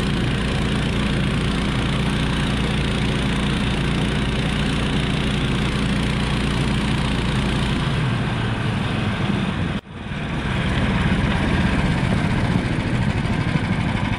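Small vehicle's engine running steadily while under way. About ten seconds in, the sound breaks off for an instant and comes back with a quicker, pulsing engine beat.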